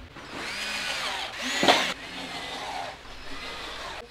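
Electric drill-driver motor whirring, speeding up and slowing in pulses of the trigger, with a sharp loud burst about one and a half seconds in.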